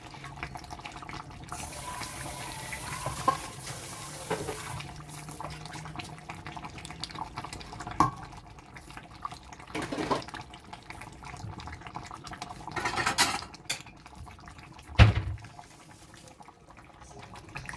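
A steel pot of hot banga (palm-nut) soup bubbling and simmering, with scattered knocks of the pot and utensils. There is a heavy thump about fifteen seconds in.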